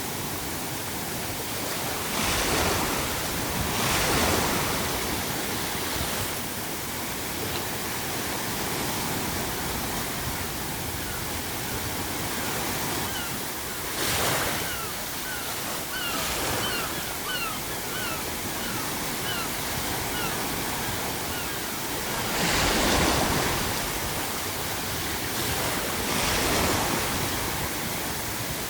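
Ocean waves breaking over a steady hiss of pink noise, with louder surges every few seconds as waves crash. Midway there is a run of short, rising seagull calls.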